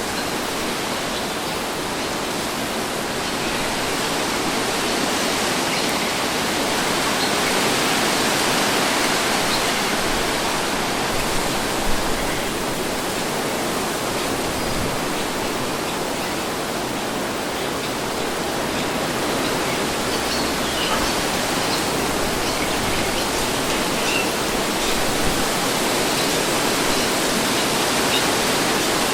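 Steady wind blowing, a continuous rushing hiss that swells gently and eases again, with a few faint brief ticks.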